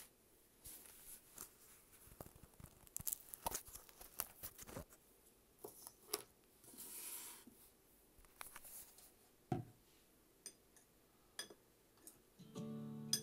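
Faint rustles, taps and clicks of paper collage pieces being handled, with a longer rustle about seven seconds in. Music comes in near the end.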